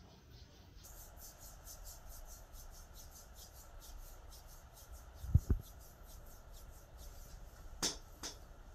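Hands rubbing and kneading skin during a leg massage: a soft rhythmic swishing, about five or six strokes a second, starting about a second in. Two dull thumps about halfway through are the loudest sounds, and two sharp clicks come near the end.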